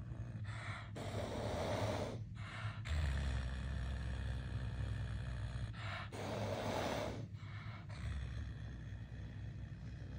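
Caracal hissing with its mouth open, in several long, breathy hisses, the longest lasting over a second: a defensive warning.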